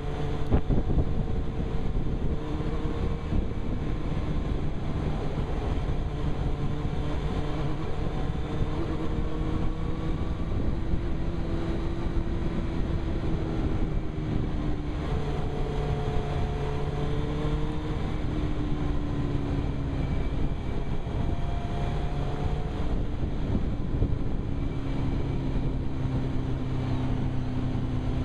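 Suzuki GSX-R 1000's inline-four engine running under way, its note drifting gently up and down with road speed, over a steady rush of wind and road noise at the rider's helmet.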